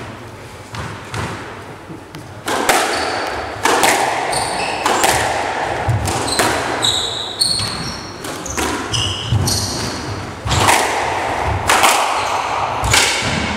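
Squash rally: the ball cracking off rackets and walls about once a second, echoing around the court, with short squeaks of shoes on the wooden floor between the hits.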